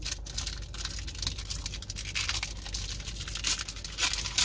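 A Pokémon booster pack's foil wrapper crinkling and tearing as it is opened by hand, in scratchy bursts that grow louder over the last two seconds.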